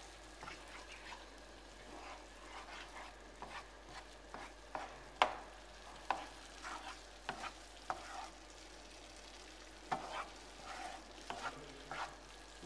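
Wooden spoon stirring and scraping a simmering tomato and green-pepper sauce in a non-stick frying pan, over a low sizzle. The spoon's strokes against the pan come irregularly, the sharpest about five seconds in.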